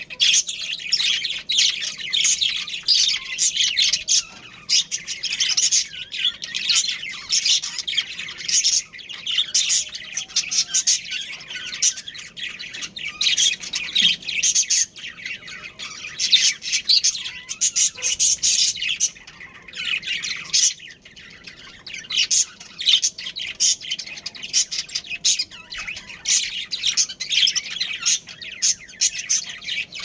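Budgerigars chirping and chattering in a rapid, continuous warble with squawks mixed in, briefly quieting about two-thirds of the way through.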